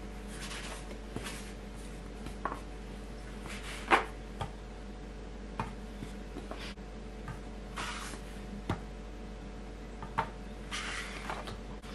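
Plastic dough scraper cutting bread dough on a wooden tabletop, with dough pieces set on a digital kitchen scale: scattered light knocks and short rubbing noises, the loudest knock about four seconds in, over a faint steady hum.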